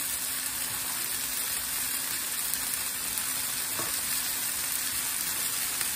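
Oil-coated, seasoned fajita vegetables sizzling steadily on an electric griddle set to 350°F, medium-high heat.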